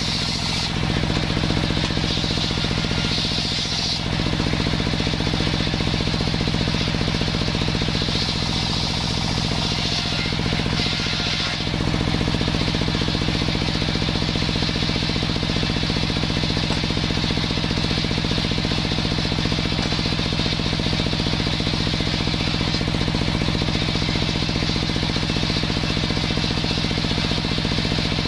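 Table circular saw running steadily, its blade cutting through sengon wood boards in passes, the cuts adding a higher, hissing rasp over the machine's drone.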